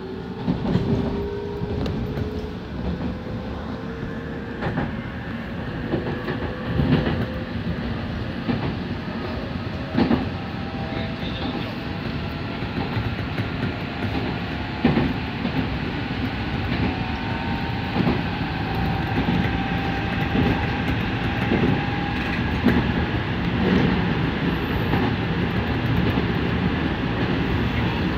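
Nankai 1000 series electric train running on the main line, heard from the front of the car: a steady rumble with a motor whine that climbs slowly in pitch over the first seconds as the train picks up speed, then holds level, and scattered clacks of the wheels over rail joints.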